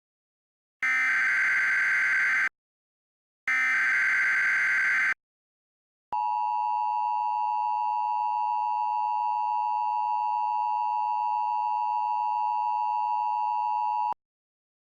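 Emergency Alert System SAME header: the last two of its three digital data bursts, each under two seconds with a short gap between. After about a second of silence comes the EAS two-tone attention signal, a steady tone held for about eight seconds that cuts off sharply near the end. The tones are computer-generated and valid, the kind that can trigger real alert equipment.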